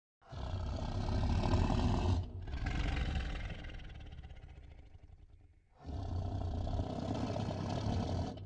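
Big cat roaring in long, deep roars: one starts just after the opening, a second follows at once and fades away, and another begins about six seconds in.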